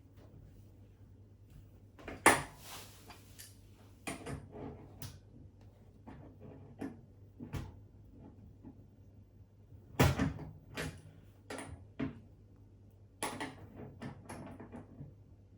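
Adjustable spanner clicking and knocking on a washing machine's steel transit bolts as they are worked loose, a bolt turning in its hole without coming out. There are irregular clicks throughout, with louder knocks about two and ten seconds in.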